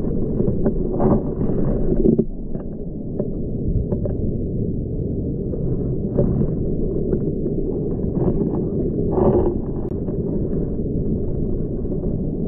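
Underwater sound of a rocky tidal pool heard through an action camera's waterproof housing: a steady, muffled rush of moving water with scattered small clicks and crackles throughout.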